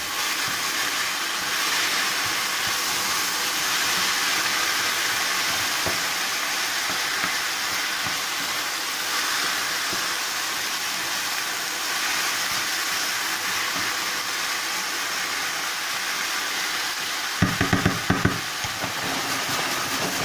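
Grated carrot and zucchini frying in oil in a frying pan, with a steady sizzle and the scraping of a spatula stirring the vegetables. Near the end comes a brief clatter of knocks.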